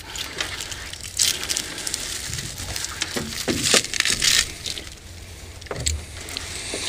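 Berley bag in a mesh onion sack being handled, the plastic and netting crinkling and crunching, with a few louder crackles.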